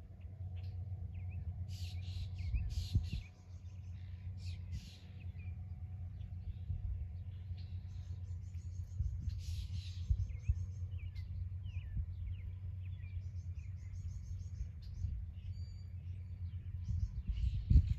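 Songbirds chirping and trilling, short calls and quick rapid trills coming again and again, over a steady low rumble, with a louder swell of the rumble near the end.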